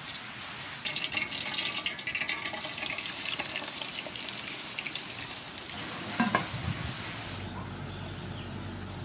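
Slab of pork sizzling and crackling in hot soybean oil in an aluminium pot as it is laid in to deep-fry. There are a couple of loud knocks about six seconds in, and the sizzling cuts off suddenly about seven seconds in.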